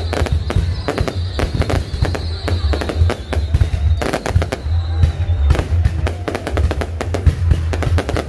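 Aerial fireworks going off in rapid succession: many sharp bangs and crackles over a continuous low rumble. A steady high whine runs under the bangs and stops about five and a half seconds in.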